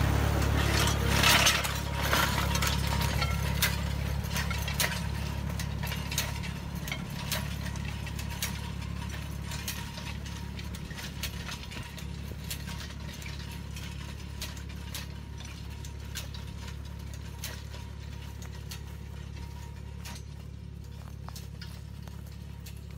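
A tractor engine running steadily while it pulls a sensor-guided inter-row hoe, with many small clicks and clanks from the working implement. It is loudest about a second in as it passes close, then fades steadily as it moves away.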